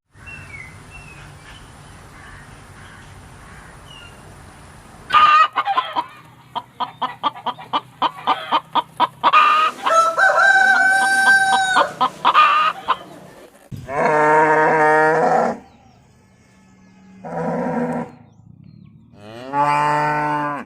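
Chickens clucking in quick repeated calls, then a rooster crowing in one long call. After that a cow moos three times, each a low call of a second or two.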